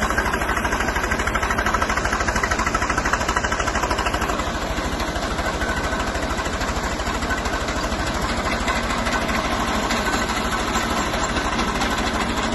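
Tractor's diesel engine running steadily, with an even, fast firing beat, as it drives a PTO-mounted centrifugal water pump under load.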